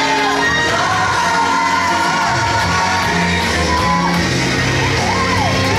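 Worship song playing: a singer's voice carries a bending melody over a steady bass line.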